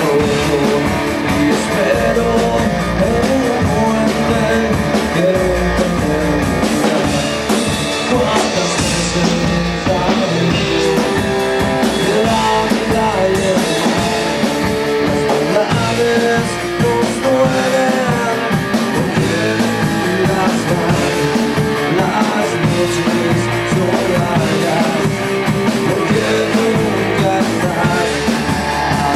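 Rock song with electric guitar and drum kit, and some singing.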